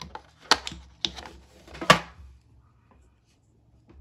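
Sharp clicks and scrapes as a small Buck 381 slip-joint trapper pocketknife is pulled from its tin's insert and its two blades are opened, three in all within about two seconds, the last the loudest.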